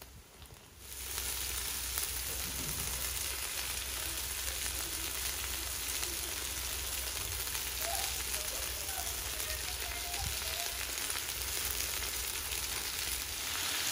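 Meat going into hot cottonseed oil and caramelised onions in a kazan, frying with a steady sizzle that starts about a second in.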